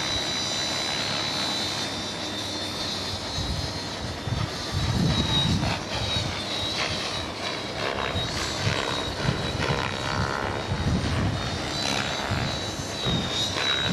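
Walkera QR LadyBird micro quadcopter's four small electric motors and propellers whining at a high pitch, the whine wavering as the throttle changes. A low rumble swells up twice, around five and eleven seconds in.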